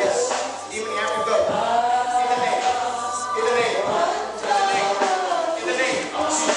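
A group of voices singing together in a choir-like chant, with long held notes that glide up and down in pitch.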